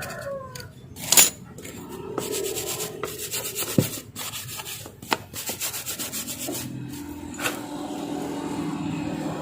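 Metal parts of a sewing machine's lower drive being worked and fitted by hand: scraping and fast ticking with sharp clicks, the loudest about a second in, and a steady low hum from about six seconds in.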